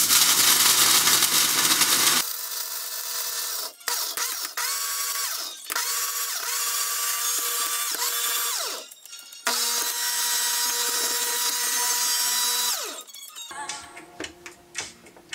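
Philips countertop blender running on fruit and greens. It starts with about two seconds of loud, rough grinding, then settles into a steadier motor whine. The motor is stopped and restarted a few times, winding down in pitch each time it is switched off, and the last stop comes near the end.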